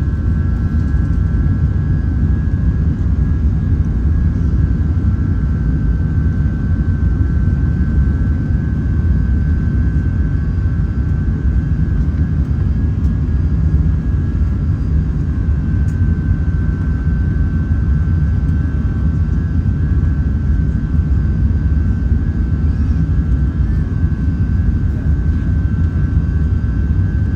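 Steady low roar of an Airbus A380's four Rolls-Royce Trent 900 jet engines and airflow, heard inside the cabin, with a thin steady high tone over it.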